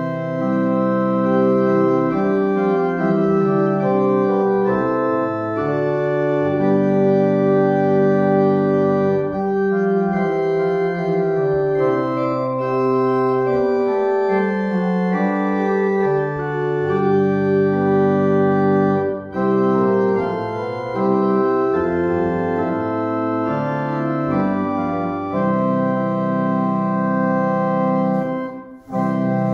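Church pipe organ playing the postlude in sustained, changing chords. The sound dips briefly about two-thirds through and drops out for a moment just before the end.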